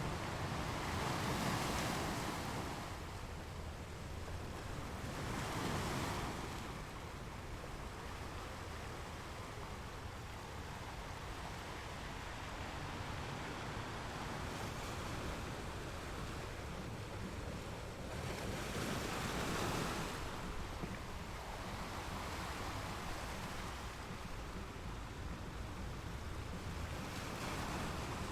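Sea waves: a steady wash of surf, with four louder waves breaking and rushing in at uneven intervals.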